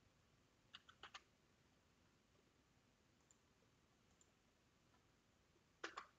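Near silence with faint computer clicks: a quick run of three or four clicks about a second in, then a louder double click near the end.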